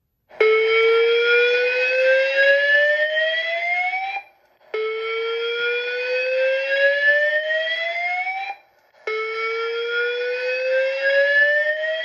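Fire alarm speaker/strobe sounding a slow whoop tone: three rising sweeps, each about four seconds long, with a short break between them. This is the alert tone played between voice evacuation messages.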